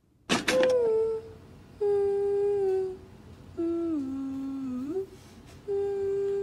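A voice humming a slow tune of four long notes, each about a second with short gaps between; the third note dips lower and glides back up.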